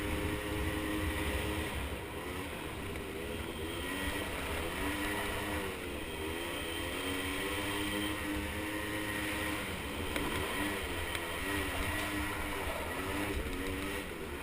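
Small 50cc ATV engines running, their pitch rising and falling again and again as the throttle is opened and eased off.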